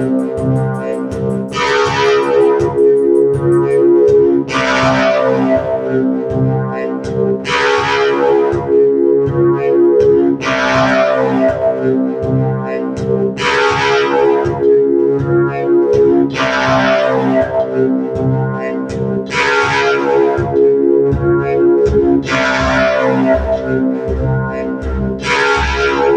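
Ambient electronic music from a Korg Volca FM synthesizer and Volca Beats drum machine: held synth chords over a low pulsing beat, with a hissing noise swell that dies away about every three seconds.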